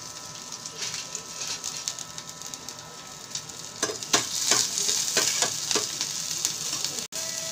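Chopped garlic, ginger and green chillies sizzling in hot oil in a steel pan. From about four seconds in, a metal spoon stirs them, clinking and scraping against the pan several times.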